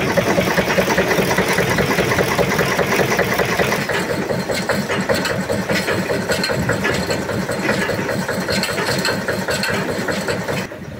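Bamford SD3 6 hp single-cylinder stationary diesel engine running steadily under light load at its governed speed of about 600 rpm.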